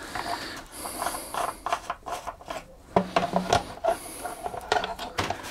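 A lawnmower's plastic engine cover being pressed and worked back into place over the engine: irregular plastic rubbing and scraping with scattered clicks and knocks.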